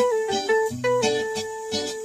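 Intro music: a plucked-string melody stepping up and down over a held bass note, with a light regular beat.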